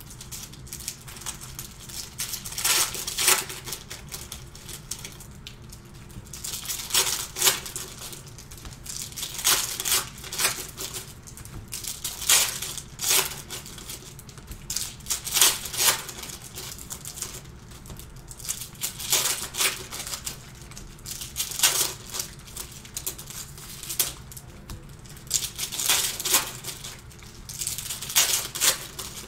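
Panini Prizm basketball retail card packs being torn open by hand, their foil wrappers crinkling in irregular bursts every few seconds.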